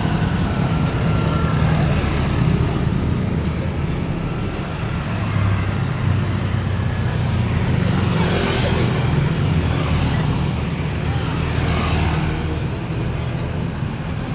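Steady road traffic: vehicle engines running with a constant low rumble, and cars passing with tyre swishes about eight and twelve seconds in.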